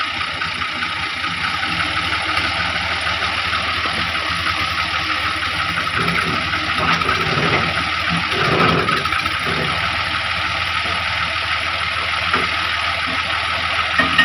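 Tractor diesel engine running steadily at low revs, with a swell of deeper rumble about seven to nine seconds in.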